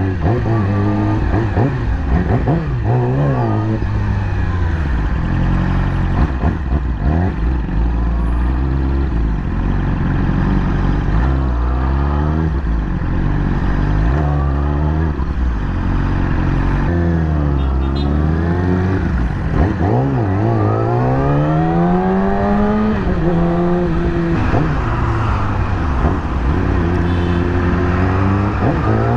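Yamaha YZF-R6's 599 cc inline-four engine revving hard under acceleration, its pitch climbing and then dropping again and again as it shifts through the gears.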